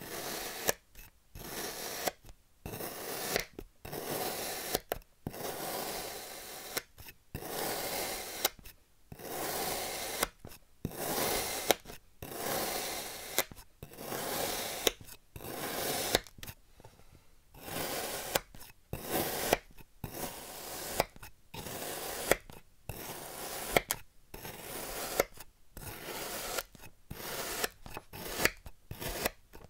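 A serrated knife slicing again and again through a moulded block of kinetic sand. Each cut is a short gritty crunch, about one a second, and some end in a sharp tick.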